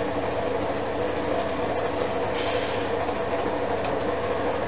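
A steady mechanical hum, with a faint click or two and a brief rustle of tool handling.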